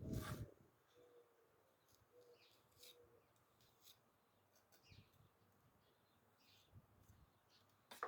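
Near silence with faint, scattered bird chirps, after a louder noise that cuts off about half a second in.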